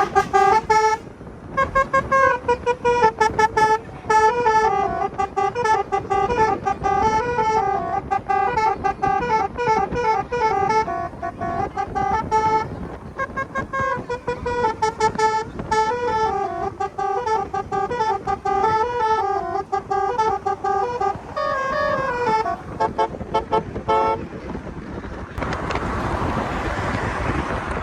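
Basuri telolet horn playing a tune, its notes stepping up and down one after another, for over twenty seconds before it stops. Wind noise on the microphone follows near the end.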